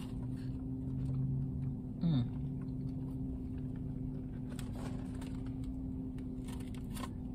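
Steady low hum of a car heard inside the cabin, with light rustling and clicks of fast-food packaging and a paper fries carton. A short low hum of a voice comes about a second in, and a brief falling vocal sound about two seconds in.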